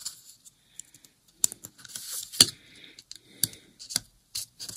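Sharp, separate clicks and light scraping of small metal and plastic parts being handled: a tiny screw, the sensor block and a hex screwdriver as the screw is fitted and driven in. The loudest click comes about two and a half seconds in.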